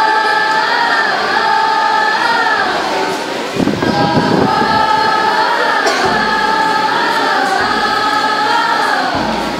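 A choir singing held notes in harmony, the voices gliding up and down together. The singing breaks off briefly about three and a half seconds in, then resumes.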